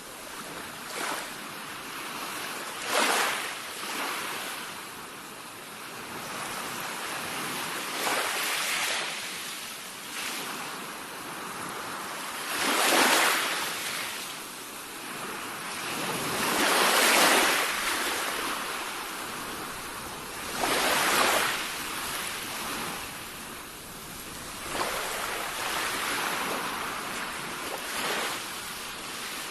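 Sea waves breaking one after another, each a swelling rush of surf every few seconds over a steady wash. The loudest breakers come around the middle.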